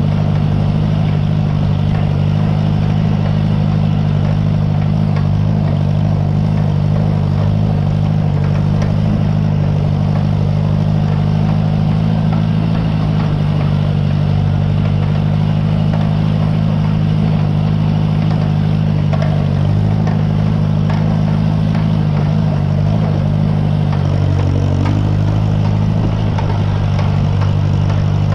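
Farmall 140 tractor's four-cylinder gasoline engine running steadily while pulling a hay rake.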